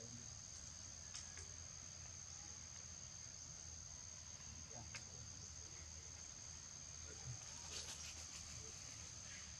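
Faint, steady high-pitched drone of insects, with a few soft clicks and a short cluster of them near the end.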